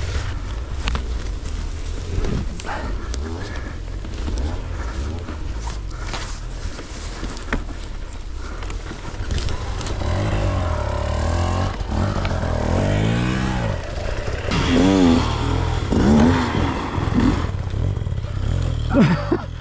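Stark Varg electric motorcycle's motor whining, its pitch rising and falling again and again with the throttle in the second half, over a low rumble and scattered clicks and knocks from the bike on rough ground.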